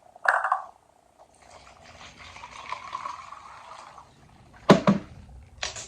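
Lemonade poured into a cup, an even stream lasting about three seconds, followed by a sharp knock.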